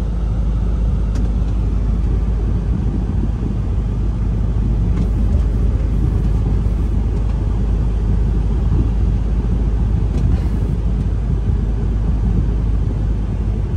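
Tractor-trailer driving at highway speed, heard from inside the cab: a steady low rumble of engine and road noise.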